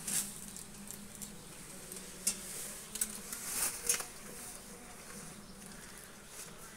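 Bees buzzing in a low, steady hum around a freshly cut honeycomb, with several short rustling and scraping noises in the first four seconds or so as the comb and the protective clothing are handled.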